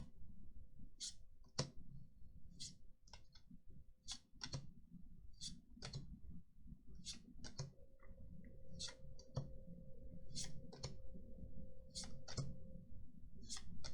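Trading cards from a Magic: The Gathering booster pack being flipped through one at a time: sharp, light clicks and snaps of card stock at an irregular one or two a second.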